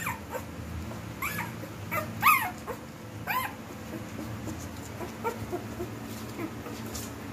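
One-week-old Husky puppies whimpering in short, high squeals that rise and fall. There are about five cries in the first three and a half seconds, then a few fainter squeaks.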